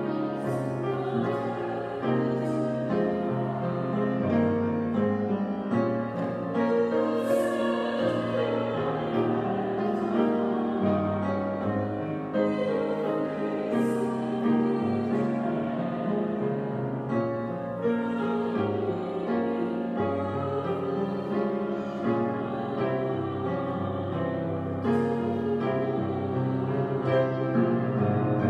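A slow church hymn: singing with piano accompaniment, its notes held long, sung during Communion.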